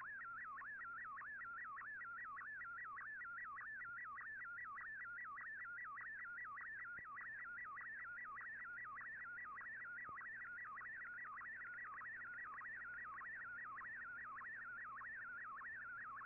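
Shortwave radio receiving an MFSK picture transmission: a single warbling tone swinging up and down between a low and a high pitch in a regular pattern, about three sweeps a second. Each sweep carries one scan line of a colour image as it is decoded.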